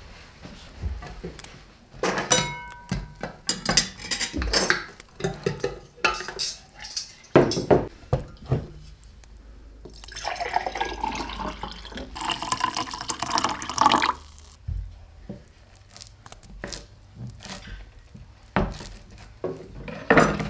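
Dishes and glassware clinking and knocking, with liquid being poured for about four seconds in the middle.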